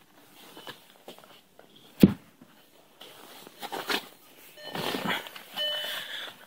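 A windshield wiper arm snaps down onto the glass of a 2009 Volkswagen Jetta with one sharp knock about two seconds in, followed by shuffling and rustling as the car is entered. Near the end the Jetta's dashboard chime starts beeping.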